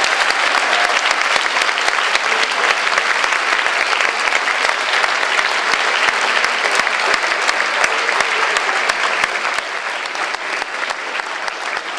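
Audience applauding: dense, steady clapping from a large crowd, easing off a little near the end.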